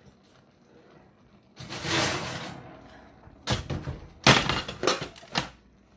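Oven door opening and a pan of biscuits being taken out: a brief rush about two seconds in, then a run of sharp metal clatters and knocks as the pan is handled and set down.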